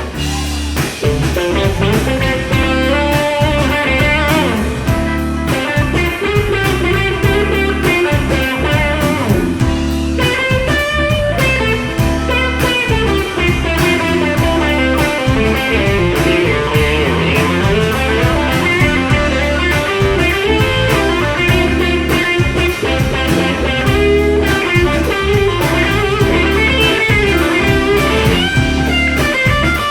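Electric guitar solo played live over a funk band's steady bass and drum groove.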